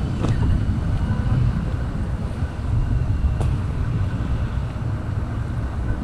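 Wind buffeting a GoPro's microphone, an uneven low rumble, with two faint clicks.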